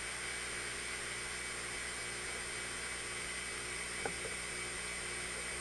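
Steady rush of hurricane wind and driving rain, with one faint knock about four seconds in.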